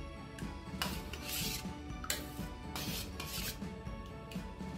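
Steel spoon stirring buttermilk in a stainless steel bowl, scraping against the bowl in a series of short, irregular strokes.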